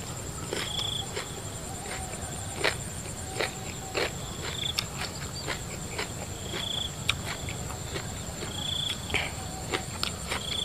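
Crickets trilling steadily, high-pitched, with a shorter chirp every second or two. Scattered sharp clicks and cracks of a raw shrimp's shell being pulled apart by hand.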